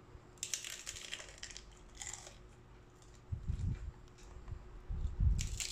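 Crunching bites into a hard corn taco shell, with crackling in the first two seconds, then chewing with dull thuds in the second half.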